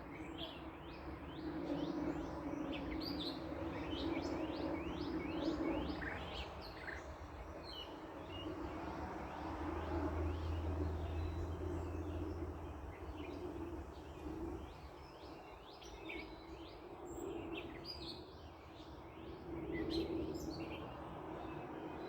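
Backyard ambience: small birds chirping in quick repeated notes over a steady background hum, with a low traffic rumble that swells and fades in the middle.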